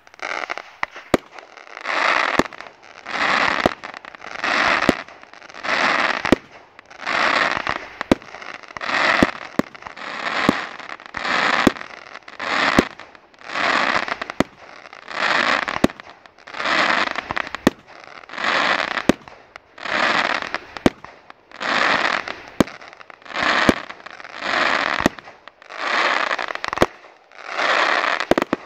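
Ghengis category 4 firework cake firing a rapid, even sequence of about twenty shots, roughly one every second and a half. Each shot is a sharp report followed by a noisy burst lasting under a second.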